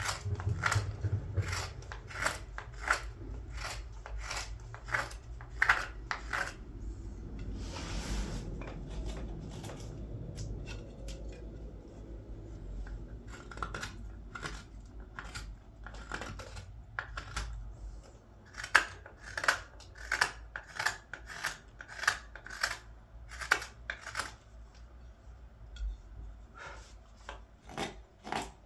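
A knife slicing through green wood in quick, crisp carving strokes, about two a second. The strokes stop for several seconds in the middle, with a brief rustle of handling, then resume.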